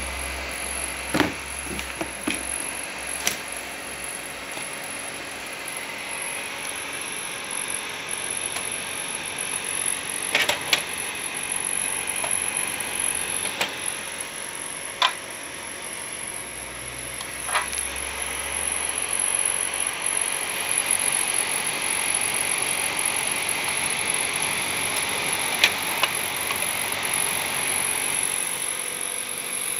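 Plastic clicks and knocks from a Kodak Carousel slide tray being handled and seated on a slide projector, scattered sharp clicks over a steady hiss.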